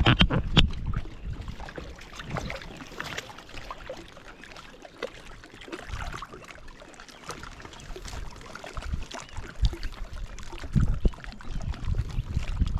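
Water trickling and splashing around a kayak on a river, with scattered knocks and low wind rumble on the microphone.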